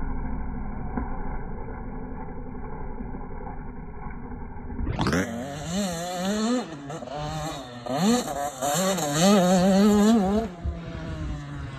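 Motocross dirt bike engine. After a dull, muffled rumble, the sound cuts about five seconds in to the bike revving up and down again and again as it is ridden around the track, then settles to a lower, steady running tone near the end.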